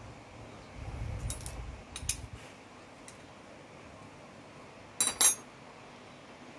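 Metal clinks from handling a motorcycle's electric starter motor and a spanner: a soft rumble of handling with a few light clicks, then two sharp clinks about five seconds in.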